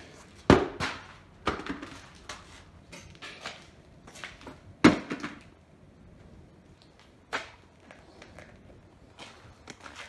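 Irregular sharp thumps and knocks of a lawn tractor wheel and tyre being handled and set down on a concrete floor. The two loudest come about half a second in and about five seconds in.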